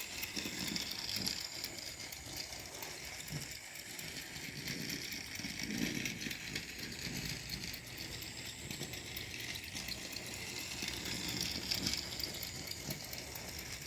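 Cheap toy train running around its track: the small motor and gearing run with a steady, rapid ticking.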